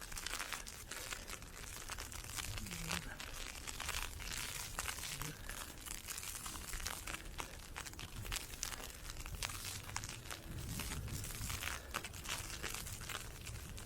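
Dense, constant crackling and ticking of wind-blown ice pellets, over a low wind rumble on the microphone.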